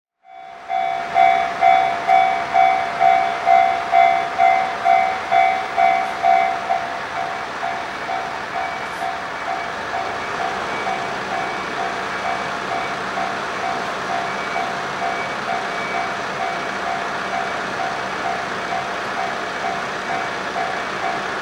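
Japanese level-crossing warning bell ringing, a repeating ding about twice a second, over the steady rushing noise of a train passing the crossing. After about six and a half seconds the bell becomes quieter while the train noise continues.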